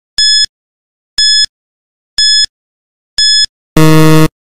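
Quiz countdown timer sound effect: four short high beeps, one a second, then a longer, lower electronic buzzer near the end marking time up.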